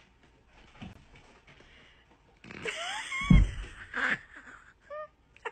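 Near silence, then a house cat's short rising calls, with a dull thud about three seconds in and a few brief mews near the end.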